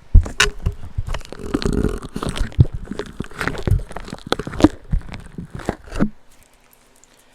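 A squishy fidget cube being squeezed and worked right against a microphone, giving a dense run of irregular crackly squishes, pops and knocks that stop about six seconds in.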